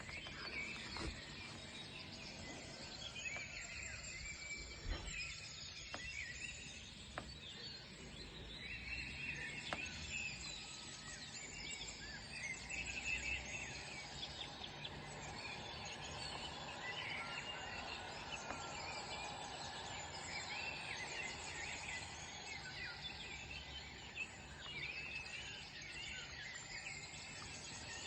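Several birds chirping and singing at once, short high calls and trills overlapping continuously, over a steady low background noise.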